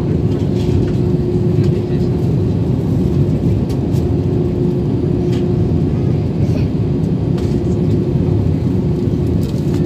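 Cabin noise inside a jet airliner in flight on its descent: the steady rumble of the engines and the airflow, with a steady hum running through it.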